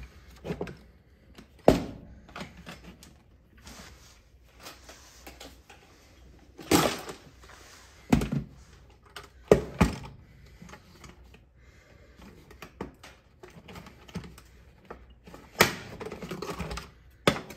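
Hard plastic ski boot and prosthetic leg parts knocking and clicking as they are handled and fitted together on a workbench: irregular sharp knocks and clicks with quiet gaps between them.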